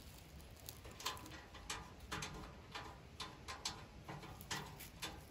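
Light, irregular metal clicks and taps as a steel leg and its thumb screw are fitted against the sheet-steel body of an England's Black Bear camp wood stove, about a dozen in all.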